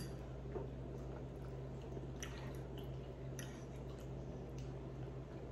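Close-miked chewing of a mouthful of red quinoa with vegetables: soft, wet mouth sounds with faint smacks about once a second, over a steady low hum.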